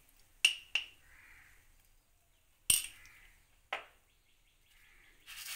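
Four sharp clicks of kitchen utensils, two close together near the start and two more about a second apart later, while salt and sugar are being added to the kadai. A soft rushing noise starts just before the end.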